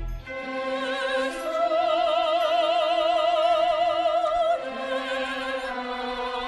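Orchestral music with an operatic voice holding a high note with wide vibrato, then moving to a lower, quieter note about four and a half seconds in.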